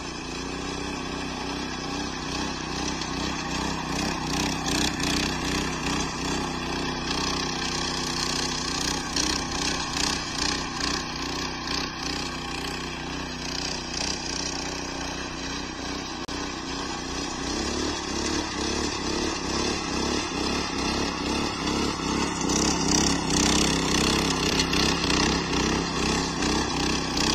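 Single-cylinder petrol engine of a 5.5 hp walk-behind rotary tiller running steadily under load as its tines churn the soil. It grows louder over the last few seconds.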